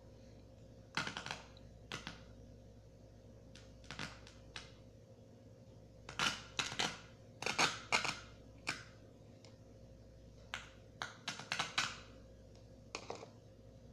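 Irregular sharp clicks and taps of hard objects, coming singly and in quick clusters, over a faint steady electrical hum.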